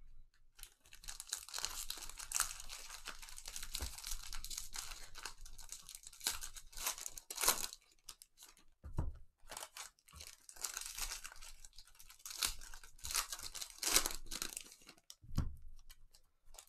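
Foil wrappers of football trading-card packs being torn open and crinkled by hand, a steady run of tearing and rustling with sharper rips here and there.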